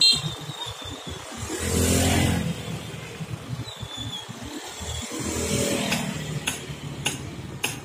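Small motor scooters and motorcycles passing close by one after another, each engine swelling and fading as it goes past. There are a few sharp clacks near the end.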